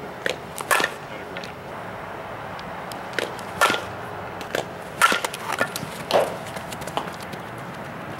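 Softball bat hitting balls: several sharp cracks a second or two apart, each with a brief ring, with smaller clicks between them.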